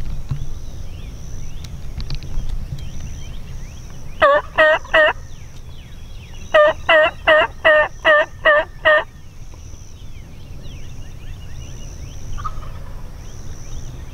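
Wild turkey tom gobbling twice: a short gobble of about three quick notes some four seconds in, then a longer gobble of about seven quick notes a couple of seconds later.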